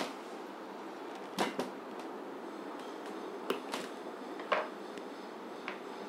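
A paring knife cutting into a raw chayote (chow chow) on a plastic cutting board: about six short, crisp clicks and taps, two of them close together, over a steady background hiss.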